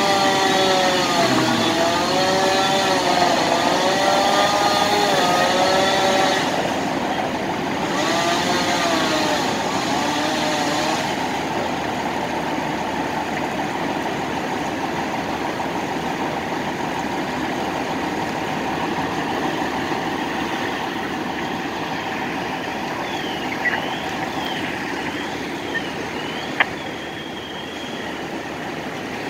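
Power saw revving up and down about once a second as it cuts through the roof for ventilation, for the first several seconds and again briefly a little later, over the steady running of fire apparatus engines. Near the end come a few quick high chirps, sharp clicks and a short steady high tone.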